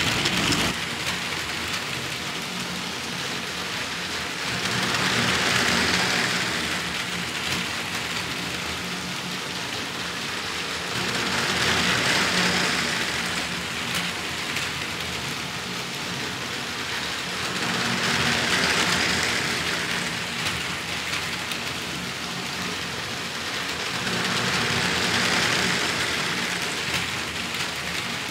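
Motorised LEGO train's wheels rolling on plastic LEGO track, a steady rolling noise that swells four times, about every six and a half seconds, as the train comes round the oval past the microphone.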